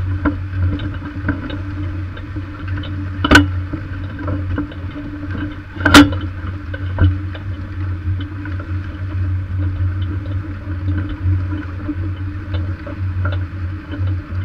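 A Lemken Variopack furrow press rolling over freshly ploughed soil behind a Massey Ferguson 7485 tractor and plough, heard from a camera mounted on the press. There is a steady low drone with constant light ticking and rattling, and two sharp knocks about three and six seconds in.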